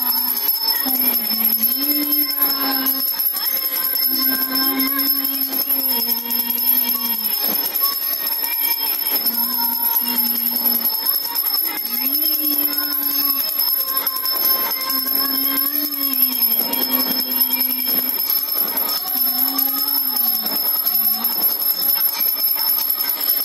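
Devotional aarti music playing, a slow melody of held and gliding notes, with a bell ringing continuously alongside.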